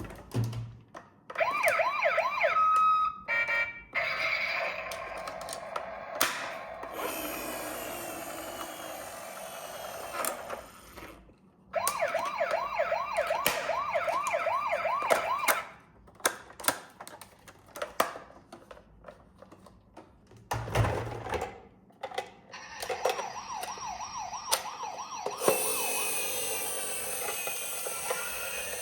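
Electronic sirens of toy emergency vehicles sounding one after another: fast repeating yelps, steadier wails and warbles, with sharp clicks and short gaps between them.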